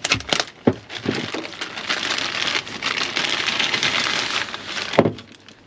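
Clear plastic packaging being torn open and handled, a continuous crinkling rustle that stops abruptly about five seconds in.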